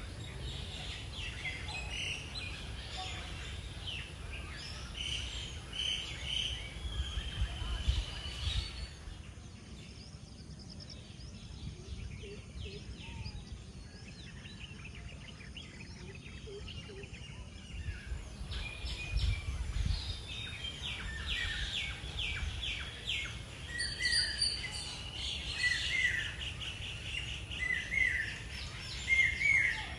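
Birds chirping and calling over an outdoor ambience with a steady low rumble. The calls thin out for a stretch in the middle, then pick up again with short, repeated calls near the end.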